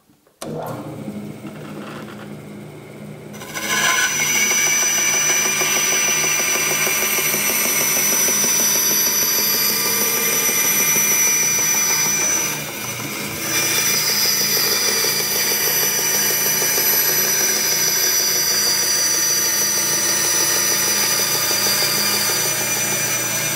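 Bandsaw motor starting and running, then the blade cutting a straight kerf into a plywood panel. The sound grows much louder about three and a half seconds in and stays steady, with a brief dip about halfway through.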